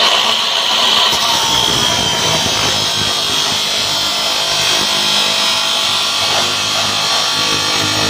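Maktec abrasive cut-off saw running and grinding through flat steel strip: a high motor whine that sags slightly as the disc bites in, then a steady grinding through the cut.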